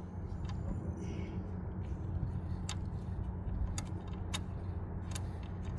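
Scattered faint metallic clicks and taps of a small part and fingers working around metal in a car's engine bay, over a steady low hum.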